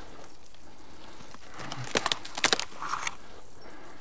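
Dry leaves and grass crackling and crunching as they are stepped through, in a few quick clusters about two seconds in.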